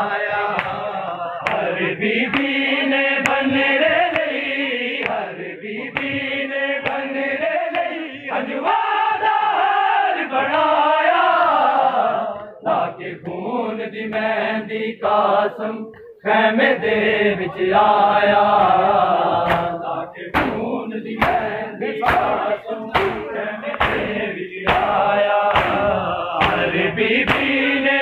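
Men chanting a Punjabi noha together, a mourning lament, with sharp hand slaps on the chest (matam) beating time at a roughly even pace.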